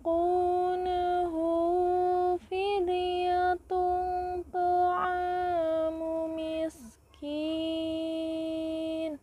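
A woman reciting the Quran in the melodic tilawah style, holding long sustained notes with ornamental bends and slides between them. There is a short break about seven seconds in, and the voice stops near the end.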